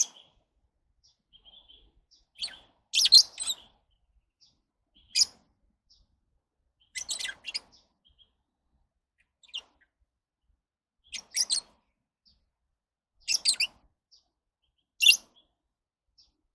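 Lovebirds chirping: short, high-pitched calls coming every second or two, some single and some in quick runs of three or four, with quiet gaps between.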